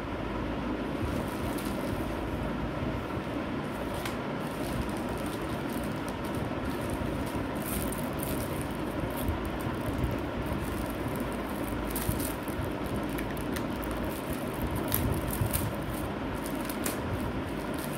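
Plastic mailer bag crinkling and crackling in short bursts as it is handled and torn open, over a steady background rumble.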